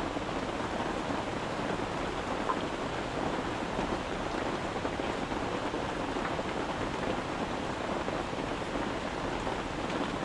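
Steady rain falling on a tent, an even hiss with a few faint ticks.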